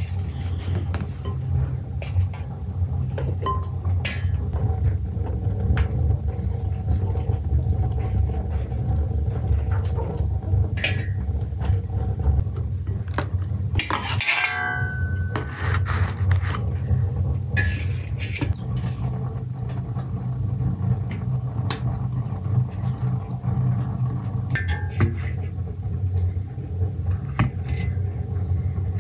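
Pots, utensils and cookware clinking and knocking now and then over a steady low rumble, with a short, pitched scraping squeak about halfway through.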